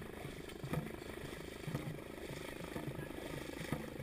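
Dragon boat crew paddling in time, with a thud about once a second as the strokes land, over a steady rumble of wind and water.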